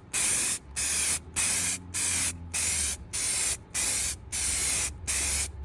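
Aerosol spray paint can spraying in short bursts of hiss, about two a second, each about half a second long.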